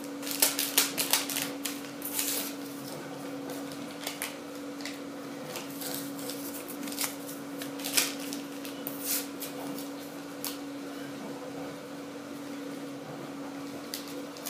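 Paper yeast sachets being handled and torn open: a quick run of sharp crinkling crackles in the first few seconds, then scattered crinkles and taps, over a steady low hum.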